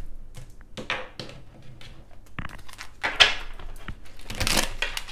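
Tarot cards being shuffled by hand: a run of light card taps and flicks, with two louder rustling shuffles, one about three seconds in and one near the end.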